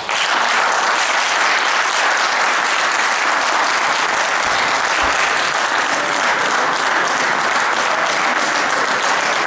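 Crowd of spectators applauding, breaking out all at once and holding steady and loud.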